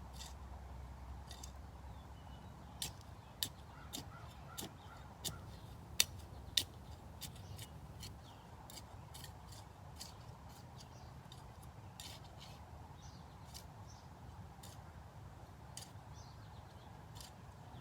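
A run of irregular, sharp clicks and taps, loudest between about three and seven seconds in, over a steady outdoor background.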